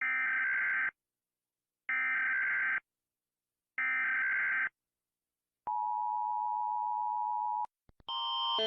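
Emergency Alert System alarm: three short, buzzy SAME header data bursts about a second apart, then the steady two-tone EAS attention signal held for about two seconds. Two faint clicks follow, and near the end a different alarm tone starts and grows louder.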